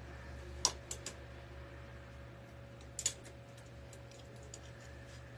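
Light clicks and clatter of clothes hangers being handled on a clothing rack: three quick clicks about a second in and two more about three seconds in, over a faint steady hum.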